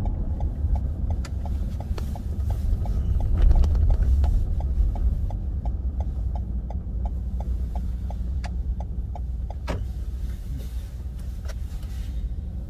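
Car's turn-signal indicator clicking steadily, about three clicks a second, over low engine and road rumble as the car turns right at low speed; the clicking stops about ten seconds in with one louder click.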